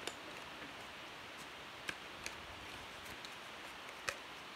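A few light clicks of coloured pencils knocking together as one is picked out, the sharpest about four seconds in, over a steady faint room hiss.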